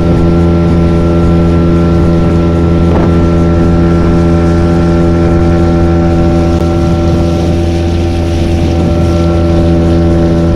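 A small open boat's motor running at a steady cruising speed as the boat crosses the river, with wind and water noise on the microphone.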